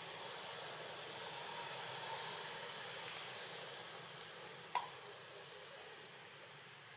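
Steady hiss of background noise, with one sharp click a little under five seconds in.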